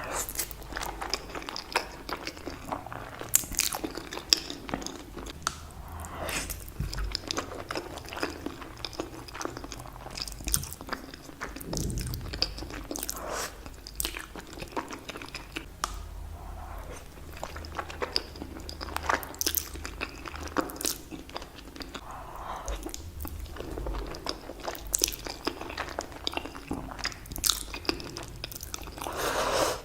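A person chewing and biting spaghetti close to the microphone, with frequent irregular sharp wet clicks and smacks of the mouth.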